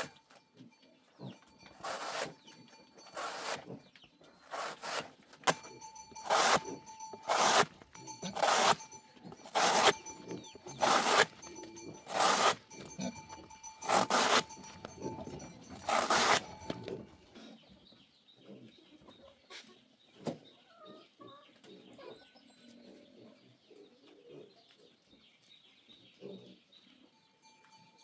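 A large knife chopping through a banana stem into thin slices, about one sharp stroke every second or so, a dozen or more in all. The chopping stops about two-thirds of the way through, leaving only faint background sounds.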